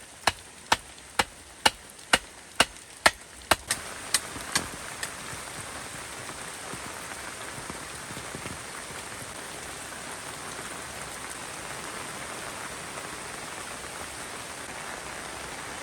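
Heavy rain falling steadily. In the first few seconds, a run of about a dozen sharp strikes at a little over two a second cuts through it, the last few fainter.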